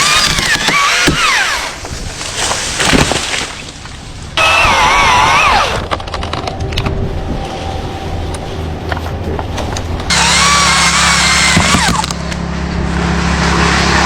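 DeWalt 60V MAX battery electric chainsaw cutting wood in three bursts, its whine wavering in pitch as the chain bites and loads the motor, with quieter stretches and a few cracks of wood between cuts.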